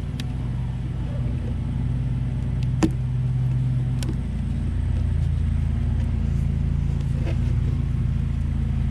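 Steady low hum of honeybees flying around an opened hive, louder after about four seconds, with a few sharp clicks.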